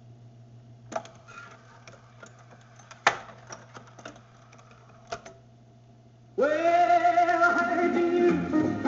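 Discomatic portable jukebox between records: a low steady hum with three sharp mechanical clicks from the record-changing mechanism, then music from the next 45 rpm record starts abruptly about six seconds in, its pitch sliding briefly upward before it settles.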